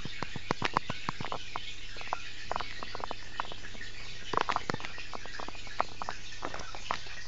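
Irregular sharp clicks and ticks, bunched at the start and again about halfway through, over a steady low hum.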